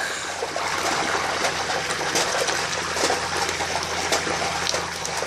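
Hot oil in a propane turkey fryer pot bubbling and crackling hard as a whole turkey is lowered into it, a steady frying rush full of small pops.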